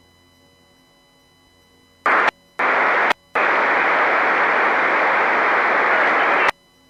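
Marine VHF radio hissing with static in three bursts: a brief one about two seconds in, a half-second one, then a steady burst of about three seconds that cuts off sharply with a click. It is the receiver's squelch opening on radio traffic that carries no voice.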